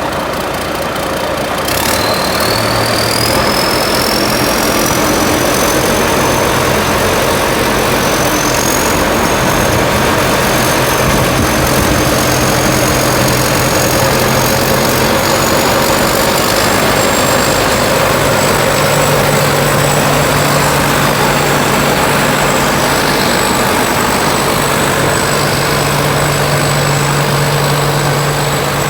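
Rice combine harvester running loud and steady. A high whine starts about two seconds in, climbs slowly in pitch, then holds steady.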